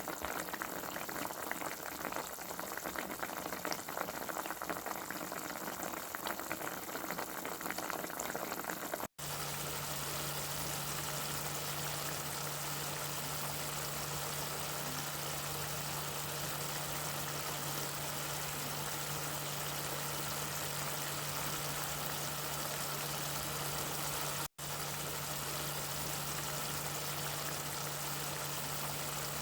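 For about nine seconds, a pot boiling with a dense bubbling crackle. It then cuts off abruptly and gives way to a steady, even hiss over a constant low hum, like a motor or fan running. That second sound drops out briefly once and goes on unchanged.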